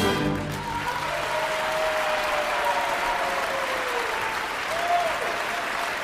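Large theatre audience applauding as the orchestra's last chord stops just after the start, with a few drawn-out calls from the crowd over the clapping.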